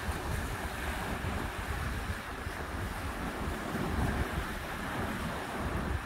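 Ocean waves washing on the shore, with wind buffeting the microphone in a low, gusty rumble.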